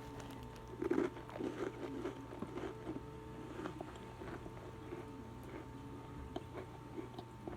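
Close-up chewing and crunching of a crisp chocolate-cream-filled cracker, with many small crackles, over a steady low hum.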